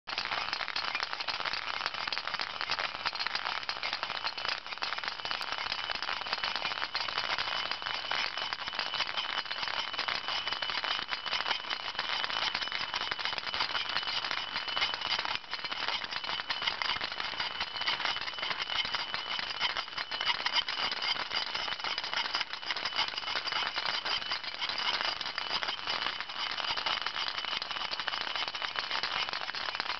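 Meccano ball roller running: its orange balls rattle continuously as they roll and knock against the metal strips of the frame, with a steady high whine from its small electric motor underneath.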